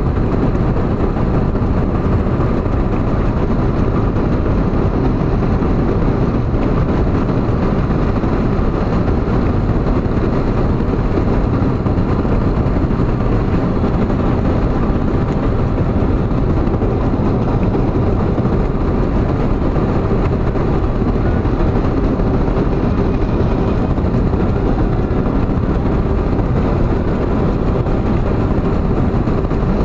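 Steady engine and tyre noise of a car cruising on a highway, heard from inside the cabin.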